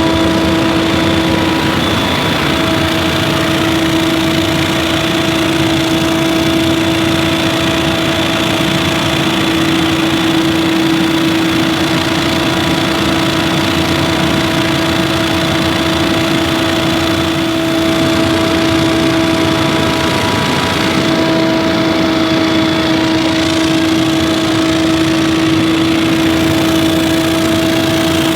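Scag Windstorm stand-on leaf blower running steadily, its engine and fan giving a loud, constant whine that holds one pitch over a rushing noise.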